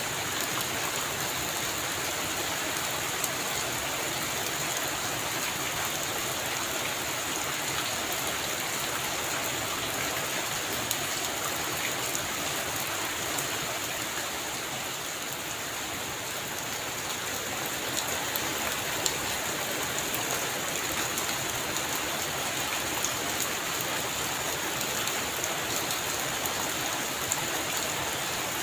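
Heavy rain falling steadily, with scattered sharp drop impacts and a slight lull about halfway through.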